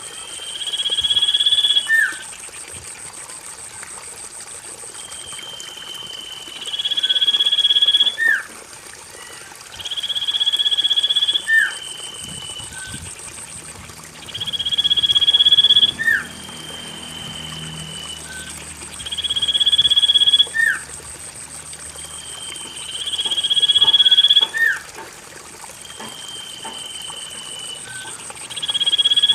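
Common iora (cipoh) lure call: a long high whistle that swells in loudness and ends in a quick downward flick, followed by a softer, slightly falling whistle, repeated about every four seconds. A thin, steady high-pitched whine runs underneath.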